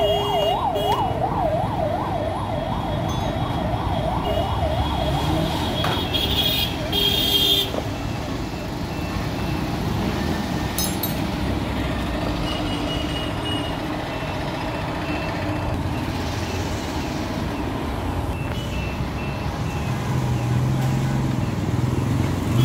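A siren wailing in a fast rising-and-falling yelp, about three sweeps a second, dying away about six seconds in, over steady street traffic noise.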